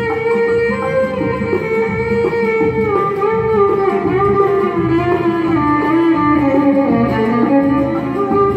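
Live ensemble music: a string orchestra with a plucked string instrument, playing a melody that slides between notes over a steady pulse.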